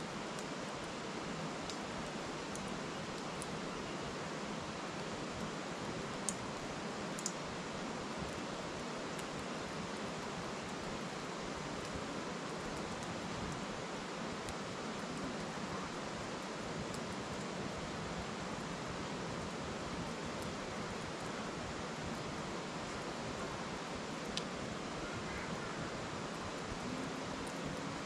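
Steady rushing murmur of a river flowing over stones, with a few sharp pops from a wood fire burning in a metal fire bowl.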